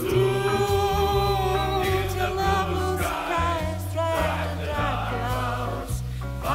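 Swing / rock-and-roll band recording: several voices sing long held notes in harmony over a bass line that steps from note to note.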